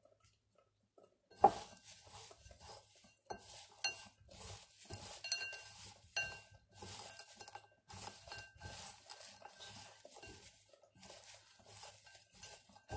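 A hand mixing dry shredded coconut and chopped almonds in a ridged glass bowl: faint rustling with scattered light clinks and taps of nuts and fingers against the glass. The first sharper tap comes about a second and a half in.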